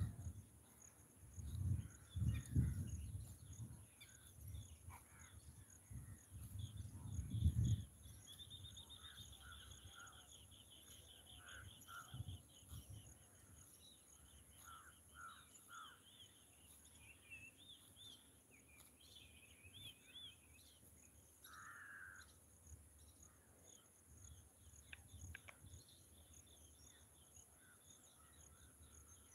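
Rural outdoor ambience: low buffeting rumbles for the first seven or so seconds, then birds calling, with a fast trill and scattered chirps, over a steady high insect drone.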